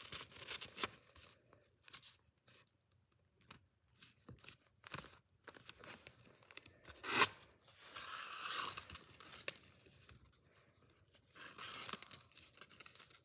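Sheet of origami paper rustling and crinkling as it is folded and creased by hand, in irregular crackles with a short lull. The loudest is one sharp crackle about seven seconds in, followed by a longer rustle.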